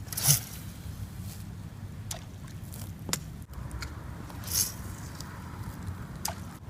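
Steady low outdoor rumble with scattered small clicks, and two brief splash-like hisses, one just after the start and one about halfway through.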